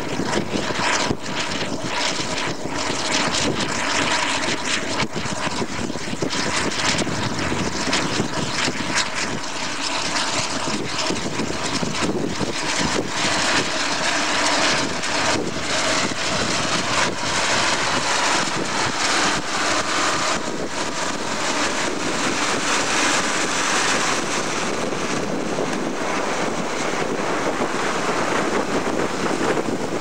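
Tractor diesel engine running steadily under heavy load, pulling a deep-set multi-furrow plough, with wind buffeting the microphone.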